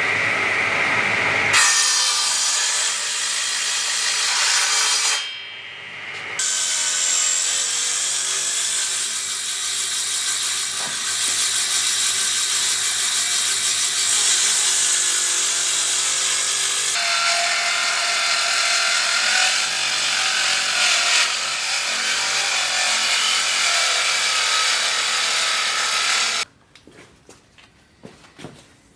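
Power tool working wood, running steadily under load with a short break about five seconds in, then cutting off abruptly a few seconds before the end, after which only faint clicks are left.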